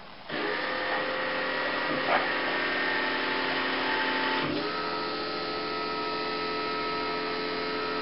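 Brew group drive motor of a Saeco Vienna coffee maker starting up at power-on and running steadily with a whine of several tones, which shifts in pitch about four and a half seconds in. With the failed TIP33C power transistor replaced, the motor is getting its full supply of about 36 volts instead of running too slowly.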